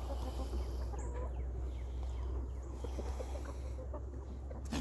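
Chickens clucking in short scattered calls over a steady low rumble, with a sharp click near the end.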